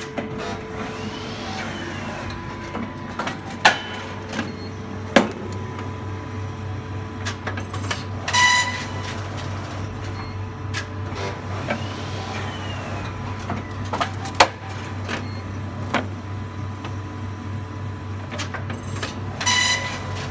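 Horizon BQ-270 one-clamp hotmelt perfect binder running through its binding cycles: a steady machine hum with sharp mechanical clunks and short clattering passages, repeating about every eleven seconds.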